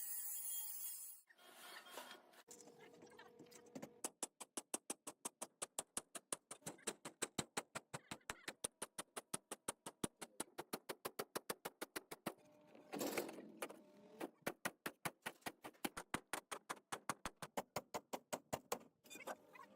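A fast, even series of sharp clicking knocks, about five a second. It breaks off once for a louder, longer burst partway through, then picks up again.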